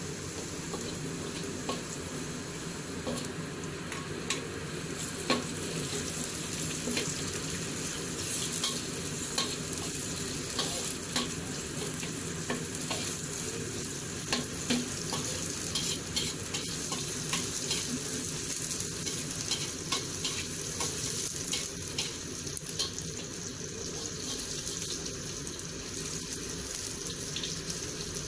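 Ginger and garlic sizzling in a little hot oil in a pan as they are stir-fried to golden brown, with frequent light clicks of stirring against the pan.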